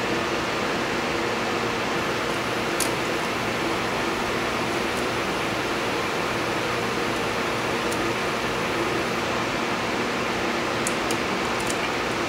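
Steady fan-like background hum with a few faint, sharp metallic ticks spaced seconds apart, from a pick hook working the pins and sliders inside a Scorpion CX5 mortise lock cylinder.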